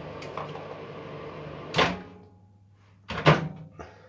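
Microwave oven running with a steady hum that stops with a sharp click a little before halfway. A louder knock and clatter follows about a second later, then a small click.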